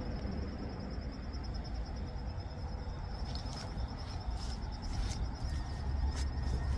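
Insects trilling steadily in a high, rapidly pulsing tone over a low rumble, with a few clicks in the second half.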